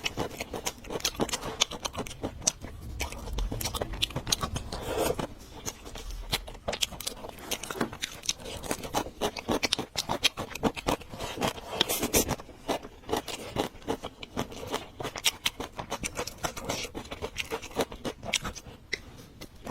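Close-miked eating sounds: crunching and chewing with a dense run of small clicks and scrapes.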